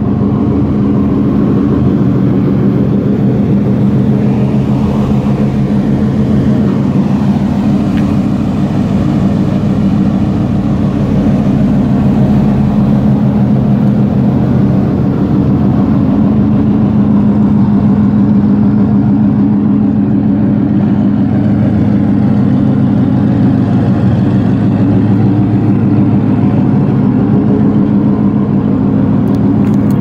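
Mazda RX-7 FD idling steadily, a constant low engine drone from the exhaust with no revving.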